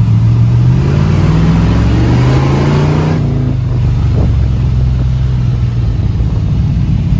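Chevy 350 V8 in a 1969 Chevy C10 pickup pulling hard under full throttle. The engine note climbs for about three seconds, then drops back to a steadier, lower running.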